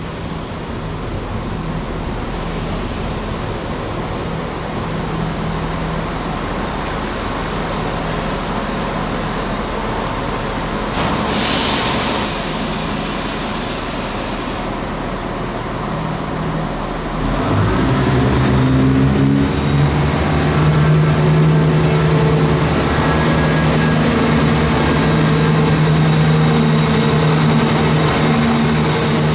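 Diesel train at a station platform over a steady background hiss, with a louder hiss about eleven seconds in. Some seventeen seconds in, a diesel engine note comes in, rises briefly, then holds steady and louder.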